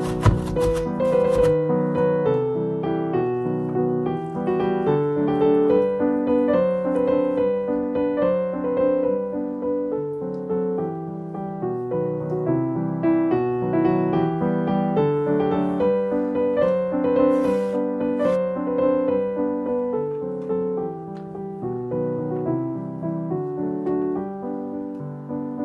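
Background piano music, a gentle melody of single notes over soft chords. In the first second or so, a few quick scrapes of cheese against a metal box grater.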